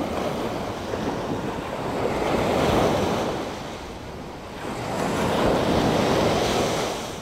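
Ocean surf: waves washing in and drawing back as a rushing noise that swells twice, about two and a half seconds in and again near six seconds, easing off between.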